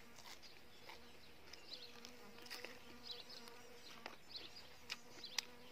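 Faint steady buzz of a flying insect hovering near the microphone, with a few soft clicks and faint high bird chirps.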